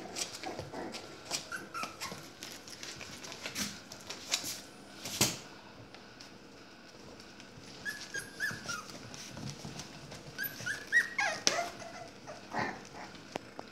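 Young puppies whimpering in short, high squeaky cries, mostly in a cluster in the second half, the loudest about eleven seconds in. Scattered sharp clicks and scuffles are heard throughout.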